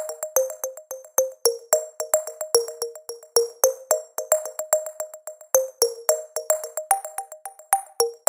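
Electronic background music: short, plucked, mallet-like synth notes in a steady, quick rhythm with crisp percussion clicks.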